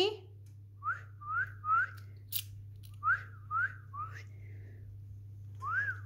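Short whistled notes, each sweeping upward, in quick sets of three about half a second apart: two sets, then a third beginning near the end. A brief sharp tick falls between the first two sets, and a low steady hum runs underneath.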